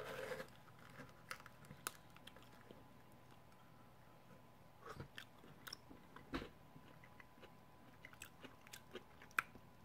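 Crisp fried tortilla taco shell crackling and crunching as it is handled and eaten, in faint, scattered clicks with a couple of louder crunches about six seconds in and near the end.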